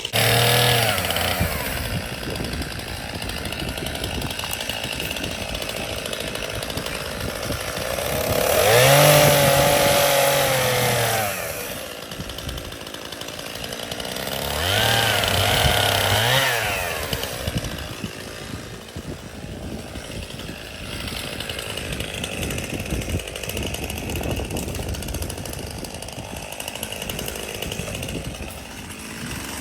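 Gas chainsaw running steadily, revved up twice for two to three seconds each, rising in pitch and then falling back.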